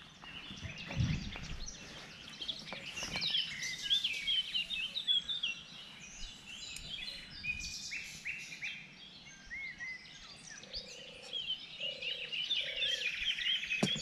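Several songbirds singing at once, many quick warbling notes. About a second in there is a low thud. From about ten seconds in, a low call repeats roughly once a second beneath the birdsong.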